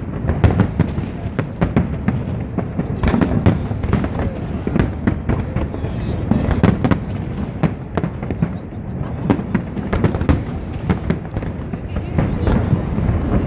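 Fireworks display: a dense, irregular barrage of booming shell bursts and sharp crackling reports over a constant low rumble.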